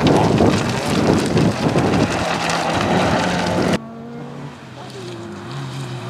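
Fiat Cinquecento rally car driven hard on gravel: a loud rush of engine and tyres on loose stones. About four seconds in it cuts off abruptly to a quieter engine note from a car further off, its pitch rising and falling as it revs.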